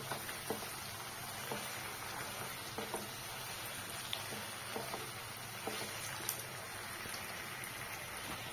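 Parwal and potato bhujiya sizzling in a nonstick kadhai while a spatula stirs in freshly added sliced onions. Light irregular taps and scrapes of the spatula against the pan, about one or two a second, over a steady frying hiss.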